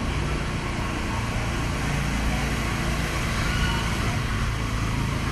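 Steady low rumble of motor vehicles running, a constant engine hum.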